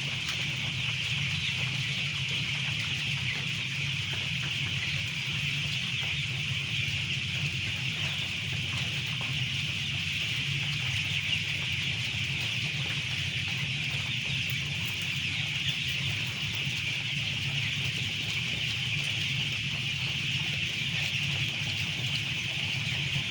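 Massed flock of poultry in a large chicken house, a dense, unbroken high chirping from many birds at once, with a steady low hum underneath.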